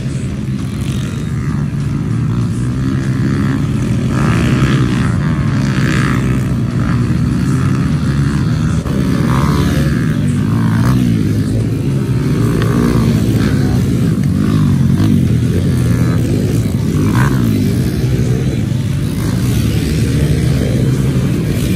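A pack of small youth dirt bikes racing, several engines at once revving up and down through their gears in overlapping, rising and falling pitches.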